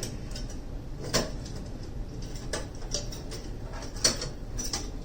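Scattered light clicks and clinks of hard parts being handled, about five in all, spaced a second or so apart.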